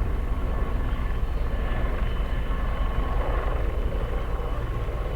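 Helicopter flying overhead, a steady drone of rotors and turbine engines with a thin high whine.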